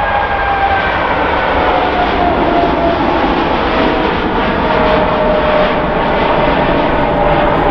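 Boeing 747-8's four turbofan engines at takeoff thrust just after lift-off as it climbs away: a loud, steady jet rumble with a whine that slowly falls in pitch.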